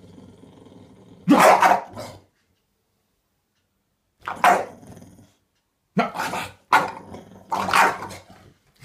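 English bulldog growling and barking in about five short bursts while tugging on a cloth: play growls in a tug-of-war game.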